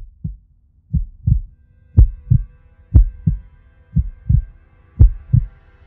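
Heartbeat sound effect: six lub-dub pairs of low thumps, about one pair a second. A faint held chord fades in behind them from about a second and a half in.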